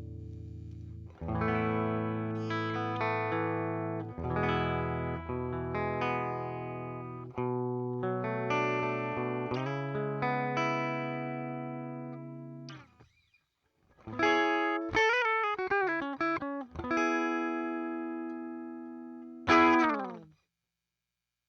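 Electric guitar played through the Zoom G2Four pedal's Fender Deluxe Reverb amp simulator. Chords are struck and left to ring, then single notes, and after a brief pause a quick phrase with wavering, bent notes. A last chord is struck loudly near the end and cut off.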